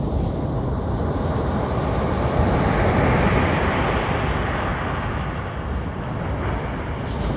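Ocean surf: waves breaking and washing in, a rushing noise that swells about three seconds in and then ebbs, picked up by an LG G6 phone's built-in microphone.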